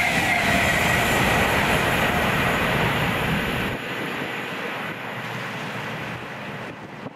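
A train passing at speed: a loud, steady rush of wheel and rail noise that drops sharply about four seconds in and then fades.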